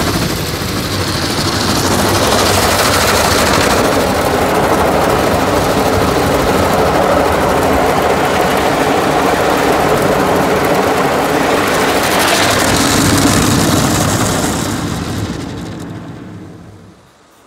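Automatic car wash's spinning cloth brushes and water spray working over the car, heard from inside the cabin: a loud, steady rushing that dies away near the end.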